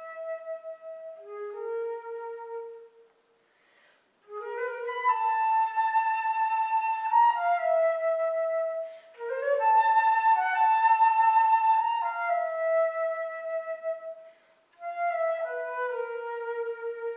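Solo flute playing slow phrases of long held notes, some sliding up into pitch, with a wavering, trill-like figure midway. The phrases are broken by short breaths, one about three seconds in and another near the end.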